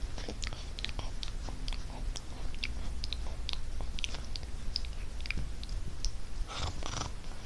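Plush toys being handled right against the microphone: fabric rustling and rubbing, with many small irregular clicks and a brief breathy hiss near the end.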